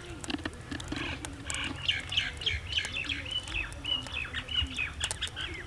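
Birds chirping in a quick run of short, high notes, several a second, with fainter low calls underneath.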